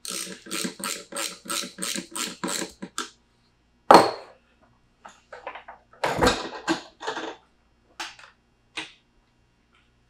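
Ratchet wrench clicking, about four clicks a second for some three seconds, as the seatpost's 10 mm top nut is run down. Then a loud metal knock about four seconds in, a burst of tool clatter around six seconds, and two small clicks near the end.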